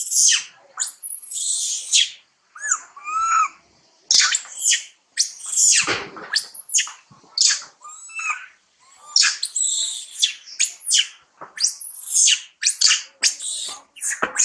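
Young long-tailed macaque screaming: shrill, high-pitched screeches over and over, more than one a second, with a softer, lower warbling call about three seconds in.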